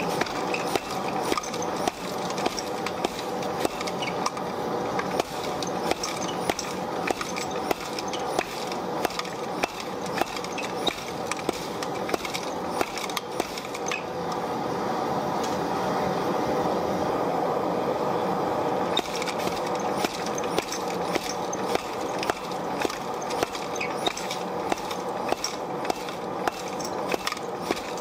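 Repeated hammer blows on white-hot mild steel bars on an anvil, about two strikes a second, setting a forge weld between two half-inch bars. There is a steady background rush throughout, and the blows pause for a few seconds near the middle.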